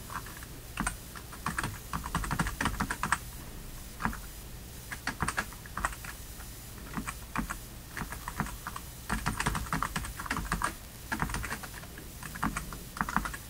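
Computer keyboard typing: irregular bursts of keystroke clicks separated by short pauses.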